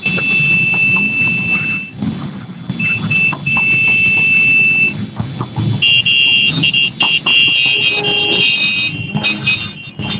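Shrill alarm-like tones sounding on and off over a low rumble: one long tone, two short ones and another long one, then several tones of different pitch overlapping in quick stops and starts near the end.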